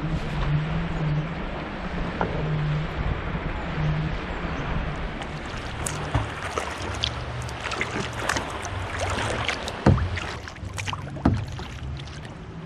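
Water splashing and dripping as kayak paddle blades dip alongside a solo canoe, with many short splashes from about halfway on and two sharper knocks near the end. Before the strokes there is a steady low rumble of wind and water.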